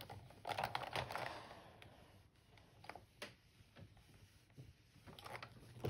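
Faint handling sounds of a foundation-paper-pieced quilt block being pressed: light rustling of paper and fabric with scattered small clicks and taps as a steam iron is moved over it.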